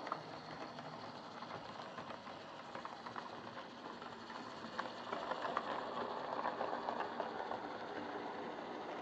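Lima Class 31 OO gauge model diesel locomotive running along the track, its motor giving a steady whir with light clicks from the wheels on the rails. It runs smoothly at a consistent speed with no pickup trouble, and grows louder between about five and seven and a half seconds in.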